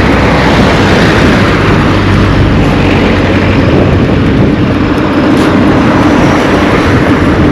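A motor vehicle engine running close by over steady road noise, with a steady engine hum coming up about halfway through.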